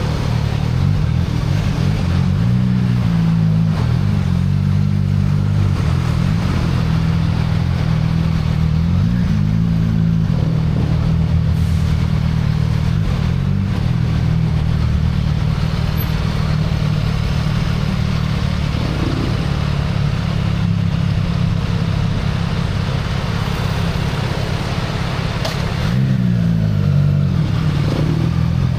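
CFMoto 675NK inline-three engine on its stock exhaust, running while riding, with the revs rising and falling several times as the throttle and gears change.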